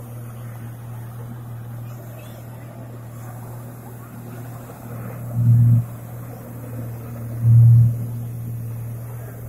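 Jet ski engine running steadily as it pumps water up the hose to a flyboard, with two brief, much louder surges a couple of seconds apart past the middle.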